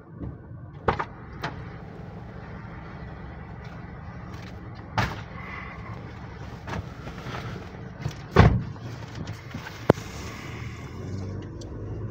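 Car engine idling, heard inside the cabin, with a few scattered clicks and knocks; the loudest is a thump about eight seconds in.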